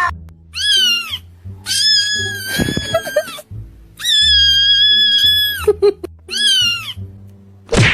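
Cat meowing four times, the second and third meows long and drawn out, over background music with a steady bass.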